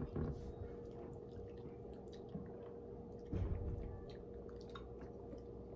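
Faint mouth sounds of someone sipping and tasting a smoothie from a glass, with a soft low bump about three and a half seconds in, over a steady faint hum.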